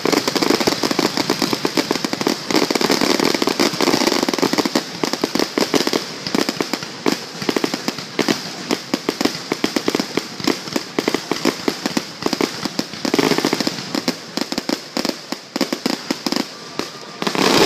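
Fireworks finale: a rapid, unbroken barrage of bangs and crackles from many shells bursting close together. After about six seconds the reports come slightly more spaced.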